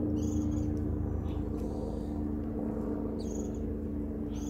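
Outdoor ambience with wind rumbling on the microphone over a steady low hum, and a few short, high bird chirps.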